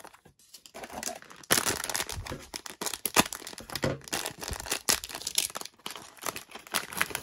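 Foil LEGO minifigure blind bags being torn open and crinkled in the hands: a dense, irregular run of sharp crackling and tearing, quieter in the first second and busier from about one and a half seconds in.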